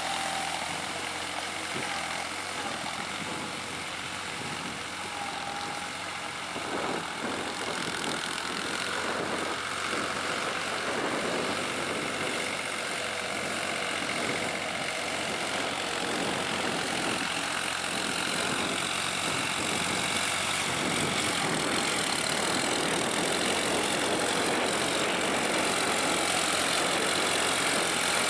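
New Holland TT55 tractor's diesel engine running steadily under load while its rear rotary tiller works through wet paddy-field mud. It grows somewhat louder near the end as the tractor comes closer.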